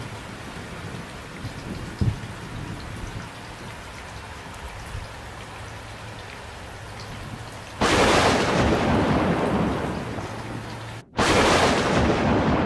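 Steady rain falling, with a low thump about two seconds in. About eight seconds in a loud thunderclap breaks in and rumbles for a few seconds. After a brief gap, a second loud thunderclap follows near the end and slowly fades.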